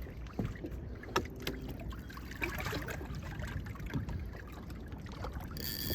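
Low rumble of wind and water around a small fishing boat, with a few faint scattered clicks and knocks. Near the end a brighter hiss with a faint steady high tone comes in.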